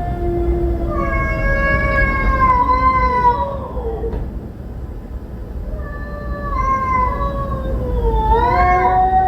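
Street cats yowling: long, drawn-out, wavering cries. One call lasts the first three and a half seconds, and another rises from about six seconds in to the end, over a low steady rumble.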